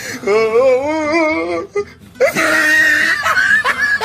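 Strange snoring from a sleeping person: a long, wavering whine, then a wheezy breath with a whistle in it. Short high squeaky laughs follow near the end.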